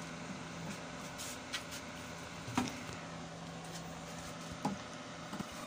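A steady low hum, with a few light knocks and clicks as a metal concealed hinge is handled and set into its cup hole in a plywood door panel.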